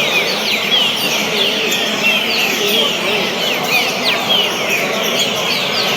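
Many songbirds chirping and singing over one another in a dense, continuous chorus of short sweeping notes, with people talking faintly underneath.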